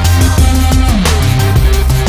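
Loud background music with a heavy, steady beat and a deep bass line.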